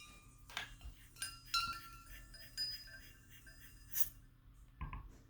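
Faint light metallic clinks and clicks, several with a short ringing tone, from handling the zero-air calibration gas cylinder and its fitting as it is disconnected from the CO sensor cover. A sharper click comes about four seconds in.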